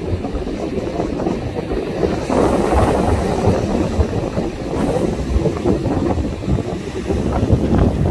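Storm wind buffeting the microphone in heavy, uneven gusts, with surf rushing underneath; the wind swells about two seconds in.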